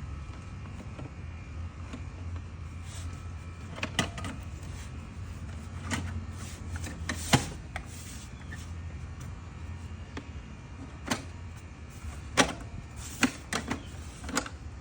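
Scattered clicks and knocks of plastic engine-bay covers and air filter housing parts being handled and fitted, the loudest about seven seconds in and several more near the end, over a steady low hum.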